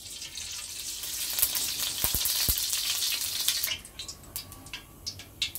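Melted ghee hitting a hot stainless-steel kadhai and sizzling, a dense hiss that dies away after nearly four seconds into scattered crackles and pops as the fat settles and heats.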